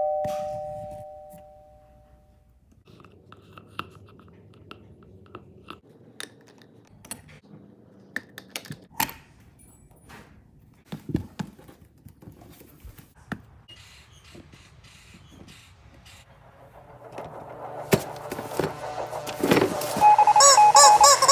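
A doorbell's two-tone ding-dong dying away, then a long stretch of scattered small clicks, knocks and jingles of keys working a door's deadbolt and knob. Music comes in loudly near the end.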